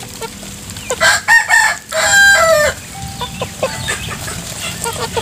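A rooster crows once, starting about a second in: one loud call of under two seconds with a short break in the middle.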